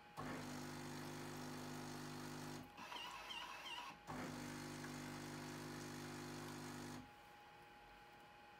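Miele CM 7750 fully automatic espresso machine's pump humming steadily in two runs of about three seconds each, with a short wavering whistle between them, as the machine runs its automatic rinse of the milk nozzle and hose.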